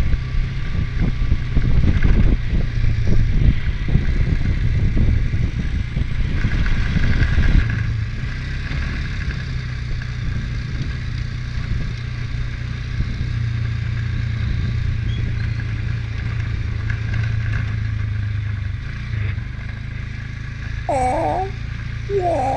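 ATV engine running as the quad drives along a trail. For the first eight seconds or so there are rattles and knocks as it jolts over rough ground, then it settles into a steady run.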